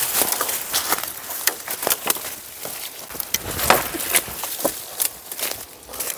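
Dry leaf litter and twigs crackling and rustling underfoot as a person walks through a forest carrying a branch, in a rapid, irregular run of small snaps with a louder snap about three and a half seconds in.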